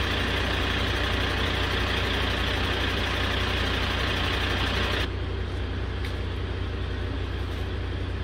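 Fire engine's diesel engine idling steadily close by. About five seconds in the sound cuts abruptly to a quieter, duller steady rumble.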